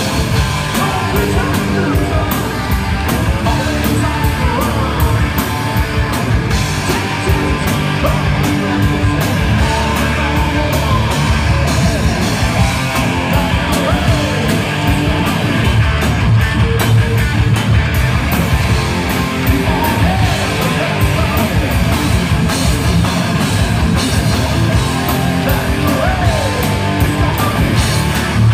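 Hard rock band playing live and loud: electric guitars over a full drum kit keeping a steady beat.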